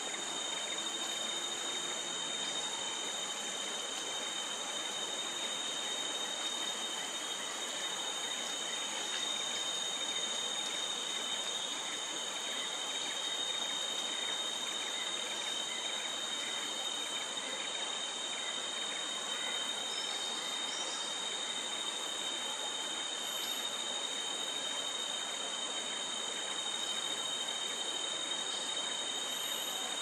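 Steady, high-pitched chorus of insects: a continuous drone holding several shrill tones at once, unchanging throughout.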